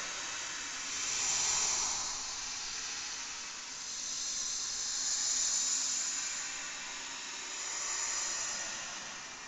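Horror sound effect: a hissing noise that swells and fades in slow waves, rising about every two to four seconds.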